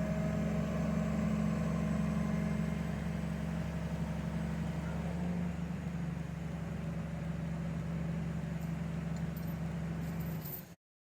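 An engine running steadily with a low hum, cutting off abruptly near the end.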